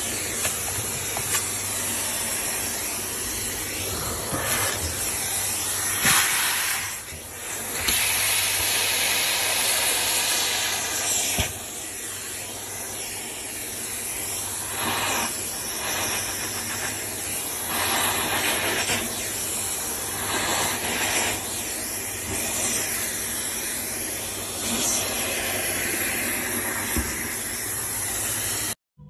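Vacuum cleaner running, its narrow nozzle sucking air with a steady hiss that swells and dips in loudness as the nozzle moves. It is loudest for a few seconds after about eight seconds in and stops abruptly near the end.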